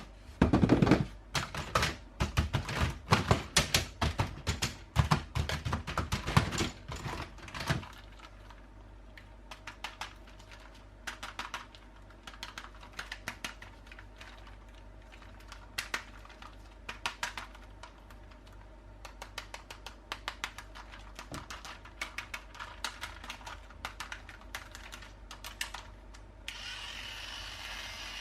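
Rapid crackling and clicking of toy packaging being handled and opened, loud and dense for the first eight seconds, then fainter and sparser. A steady noise sets in near the end.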